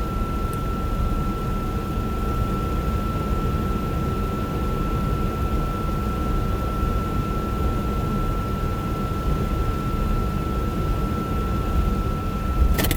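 Steady road and engine noise heard inside a moving vehicle's cabin, with a thin high tone held constant throughout. A sharp click sounds near the end.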